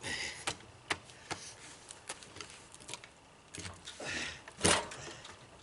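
Scattered light knocks and clicks, the strongest near the end, with brief rustling.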